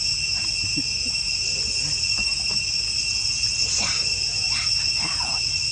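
Steady high-pitched insect drone, with a few faint short chirps about four to five seconds in.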